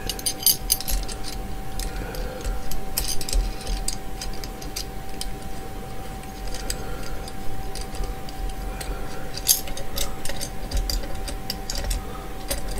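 Irregular small metal clicks, taps and light clinks of a SmallRig top handle being worked onto a metal camera cage by hand, over a steady faint tone.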